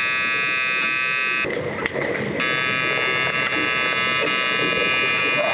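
An underwater hockey referee's underwater buzzer sounding, heard through the water: one long blast, a break of about a second, then a second long blast.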